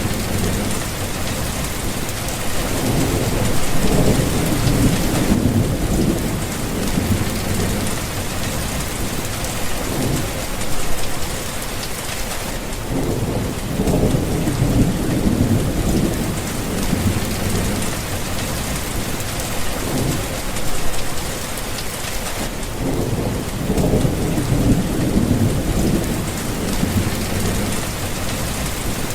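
Thunderstorm: steady heavy rain falling on surfaces, with low rolling thunder that swells and fades repeatedly.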